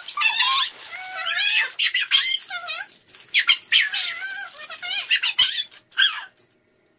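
A young girl's high-pitched, wordless squealing and squeaky vocal sounds in a string of short, wavering calls, stopping about six and a half seconds in.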